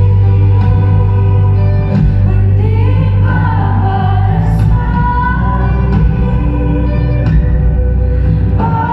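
A live pop band playing a slow song: a woman singing long, gliding notes over a drum kit, bass and keyboard, with occasional cymbal crashes. It is heard from out in the audience, with the room's echo.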